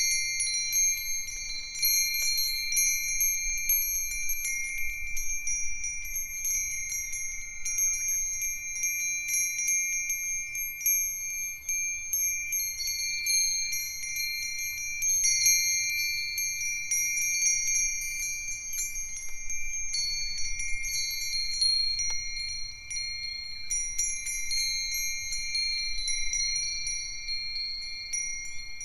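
A set of five Japanese fūrin wind chimes, among them Myochin iron fire-chopstick chimes, Nambu cast-iron bells, a Nousaku chime and a sanukite stone chime, rung by the wind. Strikes come often and overlap, and several clear high tones ring on steadily.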